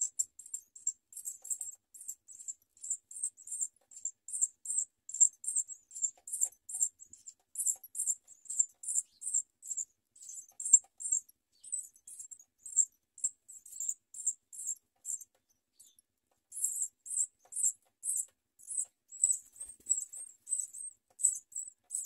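Nestling birds giving rapid, high-pitched begging peeps, two to three a second, as they gape for food from the parent. The calls pause briefly about two-thirds of the way through.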